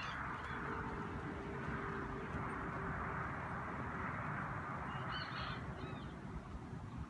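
A bird calls in short pitched calls about five seconds in, over a steady outdoor noise haze.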